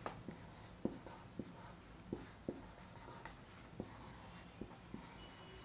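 Felt-tip marker writing on a whiteboard: faint, irregular taps and short strokes as numbers and letters are written.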